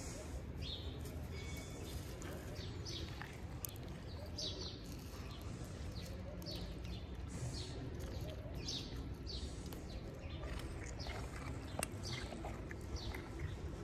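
Small birds chirping repeatedly, short falling chirps every half second or so, over a steady low background rumble, with a few sharp clicks.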